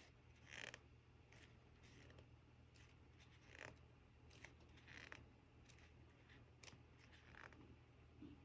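Faint swishes of paper as photobook pages are turned one after another, with a few small clicks of handling, over a low steady hum.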